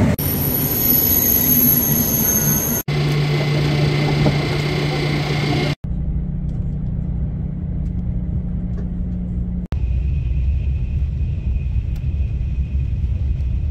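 High-speed train rumble and hum in several short clips that cut off abruptly three times: first on the platform, then from inside the carriage as the train runs, a steady low rumble with a steady hum.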